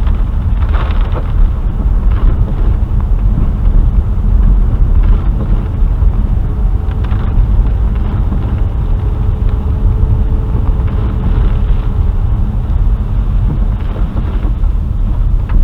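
Steady low rumble of a car driving on a wet dirt road, heard from inside the cabin.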